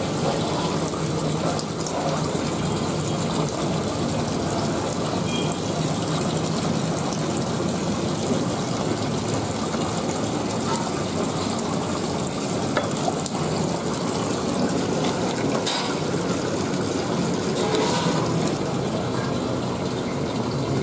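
Steady rushing background noise, like running water, with a few faint knocks late on.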